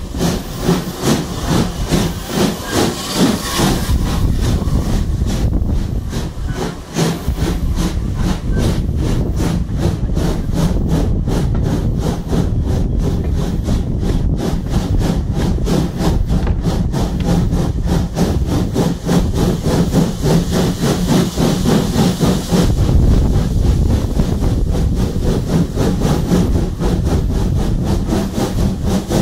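Steam tank engine working hard up a gradient: its exhaust chuffs in a steady, even rhythm over the rumble of the carriage wheels on the rails. A high hiss swells near the start and again past the middle.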